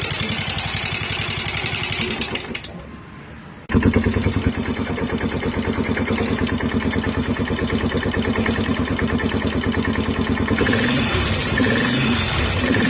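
Yamaha SR400's single-cylinder engine running with an even pulsing beat. It fades away about two and a half seconds in, comes back suddenly at about four seconds and runs again, sounding harsher near the end. The bike is being run to show an abnormal engine noise.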